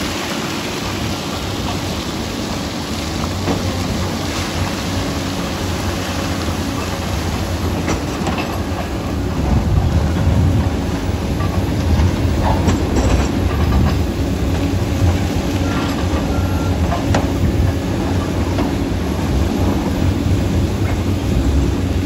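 Komatsu D85EX crawler bulldozer working, its diesel engine running steadily under load while the steel tracks clank and rattle with scattered sharp knocks.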